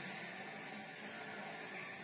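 Steady din of demolition-derby car engines running, blurred by a constant hiss, with no crashes or impacts.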